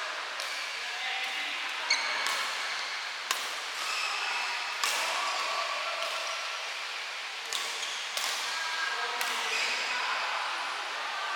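Badminton rally: rackets striking the shuttlecock about seven times at irregular intervals, the loudest hits about two and three seconds in, over the steady hiss of heavy rain.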